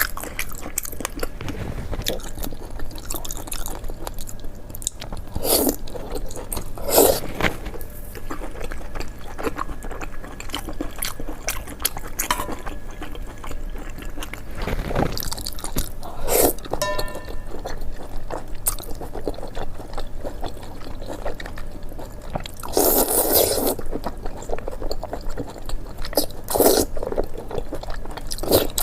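Close-up eating sounds: irregular crunchy bites and chewing, with one longer crunching bout a little past two-thirds of the way in.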